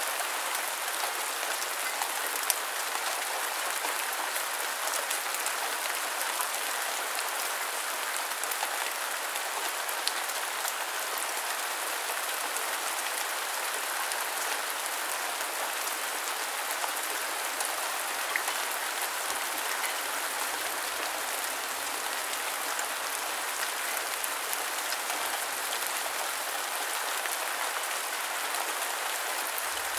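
Steady rain falling: a dense, even hiss of drops, with a few sharper single drop ticks now and then.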